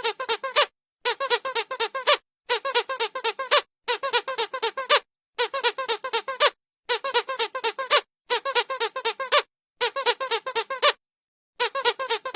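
Squeaky dog toy being squeezed in quick runs of about seven or eight squeaks, each run lasting about a second, with short silent pauses between the runs.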